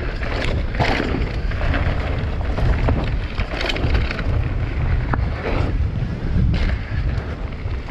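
Wind buffeting the microphone over the low rumble of a mountain bike rolling on a dirt trail, with irregular sharp clatters from the bike.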